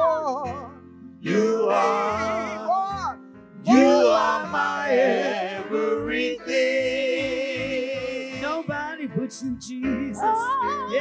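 Church praise team singing a worship song, voices wavering with heavy vibrato and sliding runs. An instrumental backing with low bass notes plays underneath.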